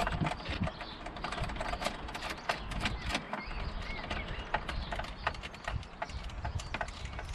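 Screwdriver and hard plastic centre-console parts clicking and tapping as screws are worked out of the console trim: many short, irregular clicks.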